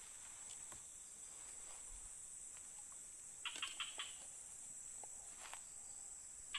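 Steady high-pitched insect chorus of crickets or cicadas, with a quick run of four or five short chirps about three and a half seconds in.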